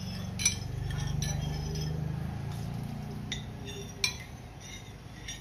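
Coconut milk being poured from a ceramic bowl into a stainless steel wok, with several sharp clinks of ceramic and metal against each other.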